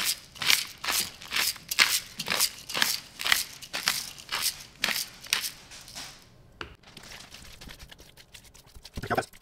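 Pepper mill grinding black peppercorns: a run of crunching twists, about three a second, that stops about six seconds in, followed by a few faint clicks.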